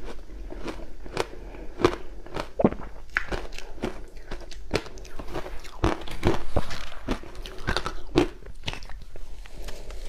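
Close-miked crunching of crushed ice being bitten and chewed with passion fruit: a rapid, irregular run of sharp crisp cracks, several a second.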